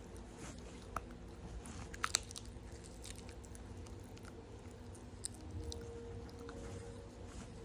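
A small pet chewing and crunching a snack: scattered small crunches and clicks, the sharpest about a second and two seconds in, over a steady low hum.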